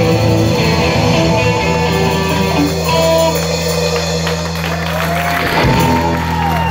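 Live hard-rock band led by electric guitars: a low chord is held and rings steadily under lead-guitar notes that bend and dive in pitch near the end.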